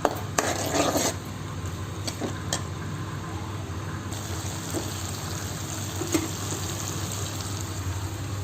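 Sauce sizzling in a pan as it is stirred, with a few knocks of the spoon against the pan over a steady low hum.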